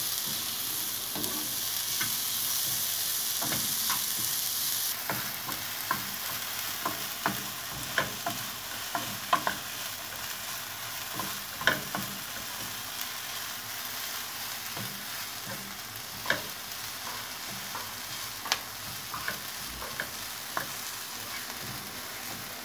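Chopped onion sizzling steadily as it fries in oil in a frying pan, with irregular sharp taps and scrapes of a spatula stirring it against the pan. The high hiss drops suddenly about five seconds in.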